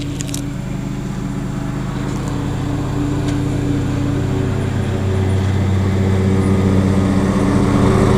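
1987 Carrier Round One 3-ton central air-conditioner condensing unit running, a steady hum of compressor and condenser fan that grows gradually louder.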